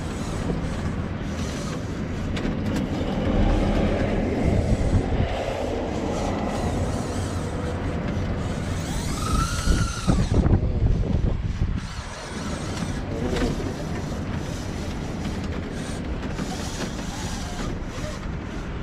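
Steady rumble of road and wind noise aboard an open-sided shuttle cart as it drives along a road. About nine to ten seconds in, a short sweeping whoosh rises and falls over it.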